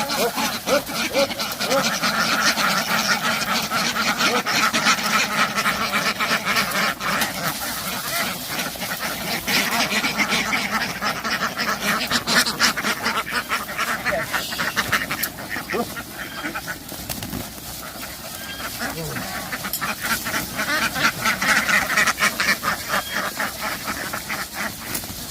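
A large flock of domestic ducks quacking in a dense, continuous chorus that swells and eases in waves, dropping quieter for a few seconds about two-thirds of the way through.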